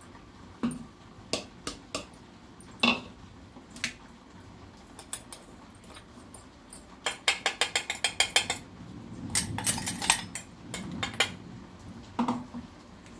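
Metal spoon clinking and scraping against a steel pan. There are scattered single knocks, then a quick run of about eight clinks a second near the middle, then a rougher scraping stretch.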